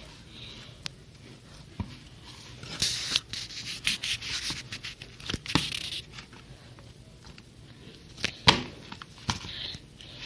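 Slime being kneaded and mixed by hand: sticky rubbing and squishing with scattered small pops and clicks, busiest in the middle, and a sharp snap near the end.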